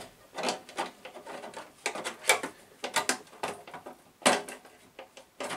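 Hands handling a clear, unpainted polycarbonate RC car body, giving irregular plastic clicks and crackles, the loudest about four seconds in.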